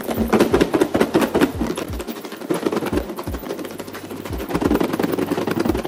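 Pieces of fried chicken shaken in a lidded plastic food container to coat them in sauce: a fast, irregular rattling and thudding that runs throughout.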